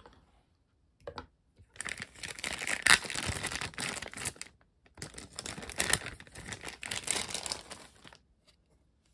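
Thin clear plastic bag crinkling and rustling as a pink plastic figure base is handled and pulled out of it, in two stretches of a few seconds with a short break between.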